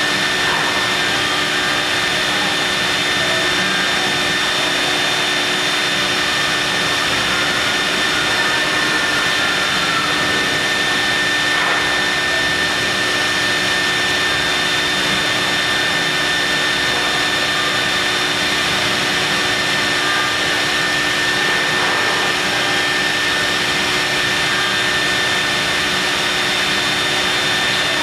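CNC milling machine cutting marble: a steady high-pitched whine from the spindle over a constant hiss, unchanging throughout.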